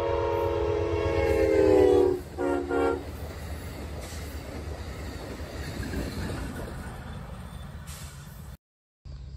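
Passenger train horn: a long blast ending about two seconds in, then two short blasts. The low rumble and wheel noise of the train passing follow, until the sound cuts off abruptly near the end.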